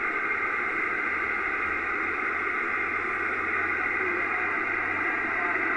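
Amateur radio transceiver's speaker giving a steady hiss of band static, the narrow, telephone-like noise of an open frequency with no voice coming through.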